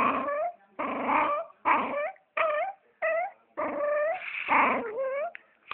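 A dog making a run of about eight short, pitched, voice-like calls, each bending up in pitch at its end, with short breaks between them: the strange 'talking' noises the dog is filmed for.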